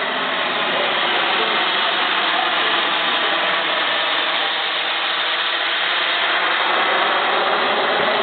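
Gas turbine engine of a radio-controlled model jet running steadily, a continuous rush of noise with a faint whine, holding the jet in a hover on its thrust.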